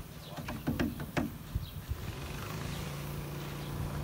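Several sharp knocks on the wooden wall framing in the first second or so, then a steady engine hum that sets in about halfway through and keeps on.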